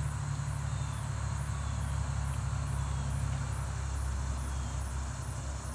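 Insects chirping in a steady high-pitched pulse, about three a second, over a steady low rumble.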